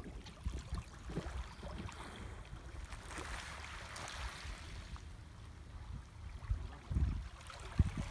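Small waves washing over a pebble shore, a soft hiss that swells midway, over irregular low rumbling thumps of wind on the microphone.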